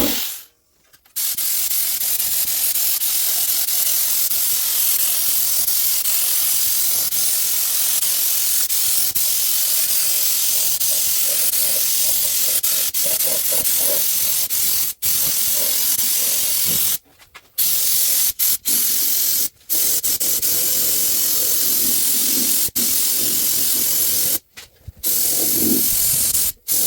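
Paint being sprayed: a steady hiss of spray that runs unbroken for about fifteen seconds, then stops and restarts several times in short bursts as the trigger is released and pulled again.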